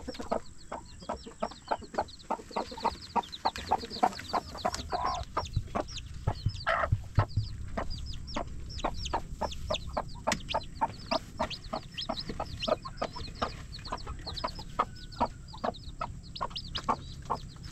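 Newly hatched chicks peeping steadily, short falling peeps several times a second, with a few lower calls from the mother hen.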